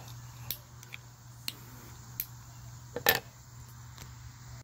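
Light clicks and taps of small objects being handled and set down on a wooden board: about six sharp ticks, the loudest a double tick about three seconds in, over a steady low hum.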